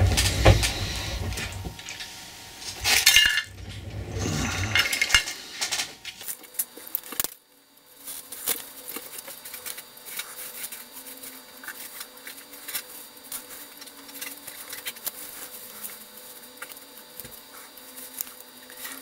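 Workbench handling noises as a capacitor is desoldered from a model-railway decoder: knocks, rustling and small metallic clinks of tools, loudest in the first five seconds. After a brief drop out about seven seconds in, only faint scattered clicks remain.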